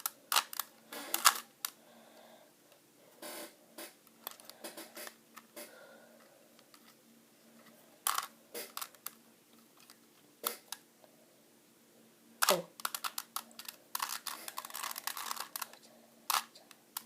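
A Rubik's cube being turned by hand: irregular plastic clicks and clacks as its layers are twisted, with a quick run of turns in the last few seconds.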